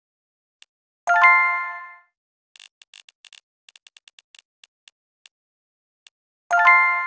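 Spinning-wheel app sounds: a bright chime about a second in as the wheel lands on a result, fading over about a second. Then faint clicks as the wheel spins again, coming further and further apart as it slows, and a second chime near the end as it stops.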